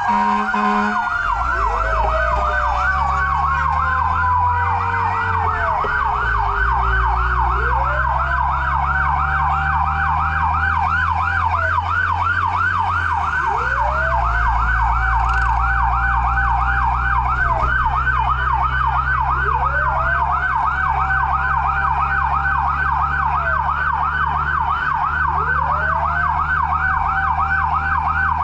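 Fire truck sirens: one on a fast yelp of about four sweeps a second, and a second rising and falling in a slow wail every five or six seconds, over a steady engine drone. A long falling tone fades out over the first several seconds.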